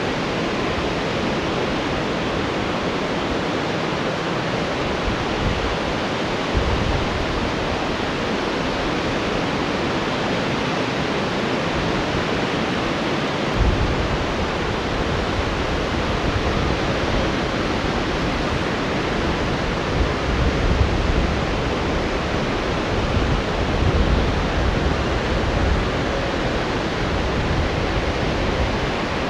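Steady noise of rough, breaking surf and strong wind, with gusts of wind buffeting the microphone now and then.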